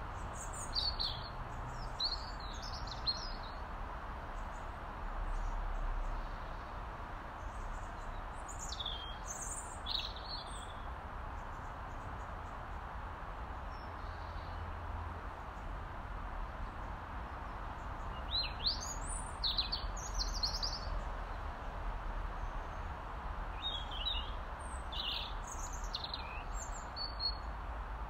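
A robin singing: four short phrases of high, thin, quickly warbling notes, separated by pauses of several seconds, over a steady background hiss and low rumble.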